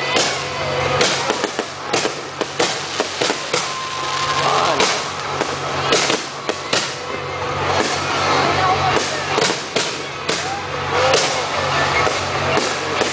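Fireworks display going off: many sharp bangs and crackles in quick, irregular succession, over music and crowd voices.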